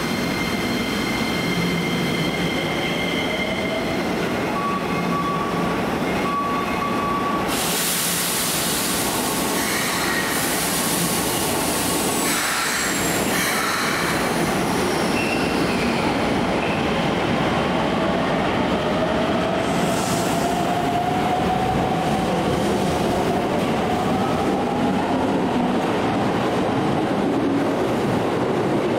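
Subway trains moving at an underground station platform: a steady rumble of wheels and motors, a louder rush as a train passes from about eight to fourteen seconds in, then a slowly rising motor whine as a train pulls away.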